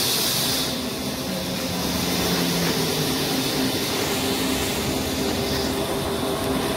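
Steady mechanical hum over a constant hiss.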